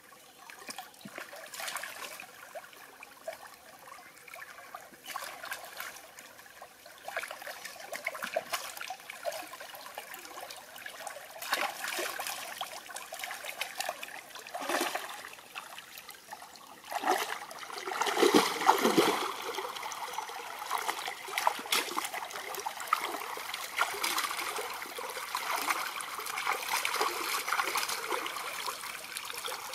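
Shallow stream water splashing and sloshing irregularly as a person wades and dips a turtle and a fish in it, over the stream's steady trickle. The splashing is loudest a little past the middle.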